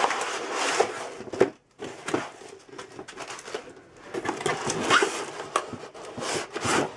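Cardboard laptop box being handled and opened by hand: the flaps and sides scrape and rub, with a few light knocks. The handling stops briefly about a second and a half in, then starts again.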